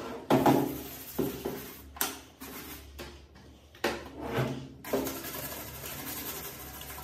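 Cleaning a soapy desktop PC tower's front panel: several separate knocks and rubs against the case in the first five seconds, then steady scrubbing with a small brush.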